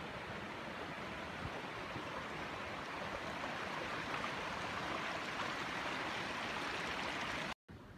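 Small stream of flood water rushing steadily over loose stones, a little louder midway through; the sound cuts off abruptly near the end.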